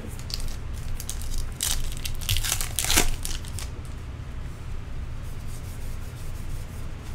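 A trading-card pack wrapper crinkling and being torn open by hand, with a cluster of sharp rips about one and a half to three seconds in, followed by softer rustling as the cards are handled and shuffled.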